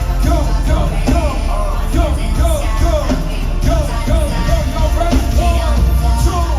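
Live hip-hop beat played loud over a concert sound system: heavy bass under a repeating gliding melodic line, with voices singing or shouting along.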